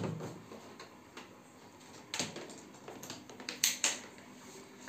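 A few sharp clicks and knocks, the loudest a close pair near the end, as the air purifier's power plug is pushed into a wall switchboard socket.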